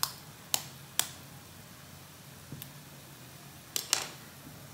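A raw egg's shell being tapped to crack it: three sharp taps about half a second apart, then two more in quick succession near the end.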